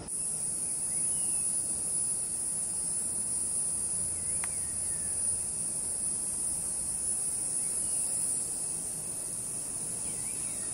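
A chorus of tropical forest insects making a steady, high-pitched drone, with a few faint chirps over it.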